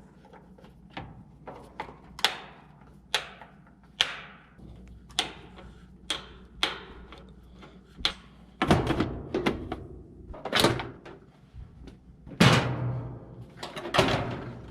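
A washing machine's cabinet cover being taken off: sharp metallic clicks and knocks about once a second, then several louder bangs and clatters in the last six seconds as the panel comes free, over a faint steady low hum.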